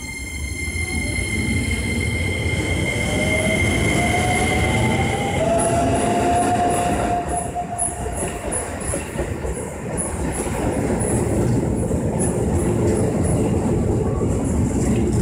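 Keisei 3000 series electric train pulling away and accelerating. The electric traction's inverter whine gives a steady high tone for about the first five seconds, then a tone rising in pitch as speed builds. Under it runs a continuous rumble and regular clatter of wheels on rails as the cars pass.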